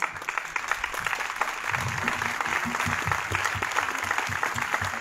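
Audience applauding, many hands clapping at a steady level, starting just as the speech breaks off.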